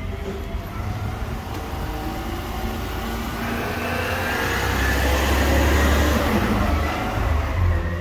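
Garbage truck's diesel engine running close by, with a whine over the rumble that slowly rises in pitch. The sound grows louder to a peak about five to six seconds in.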